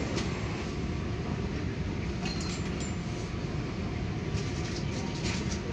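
Train running along the rails: a steady rumble of wheels on track, with a few faint high squeals in the middle.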